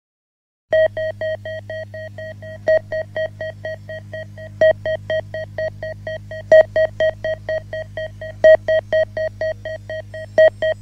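Opening of an electronic track: after a moment of silence, a rapid train of short synthesizer beeps at one pitch, about five a second with a louder beep every two seconds, over a steady low drone.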